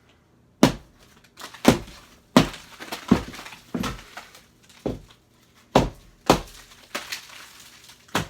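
Ceiling drywall being knocked and broken out: about eleven sharp cracking knocks, one every half second to second, each with a short crumbling tail of breaking gypsum.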